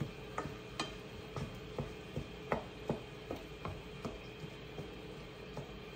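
Wooden spoon knocking and scraping in a non-stick skillet, breaking up ground meat as it browns: a run of irregular taps, a few a second, thinning out after about four seconds.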